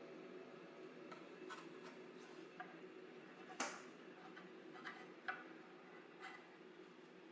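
Faint light clicks and taps of a spatula against a small square frying pan as it is handled, about eight in all, the sharpest a little past halfway, over a low steady hum.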